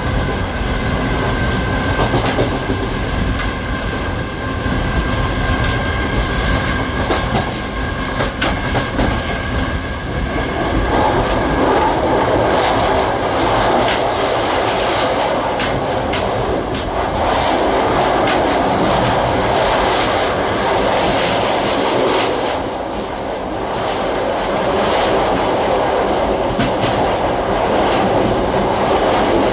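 Series 2100 electric multiple unit running along the track, heard aboard: continuous running noise with clicks of wheels over rail joints. A few steady whining tones carry through the first ten seconds or so, then the running noise grows louder from about ten seconds in, easing briefly near the end.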